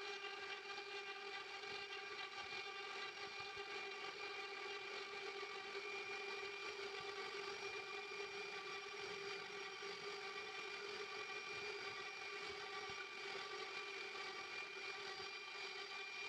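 CNC router spindle running at constant speed: a steady, high-pitched motor whine.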